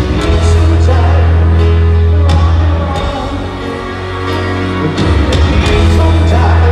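Live rock band with piano playing a slow ballad through an arena PA, heard from the stands. Heavy held bass notes under piano and band sound, easing off for a couple of seconds around the middle before coming back.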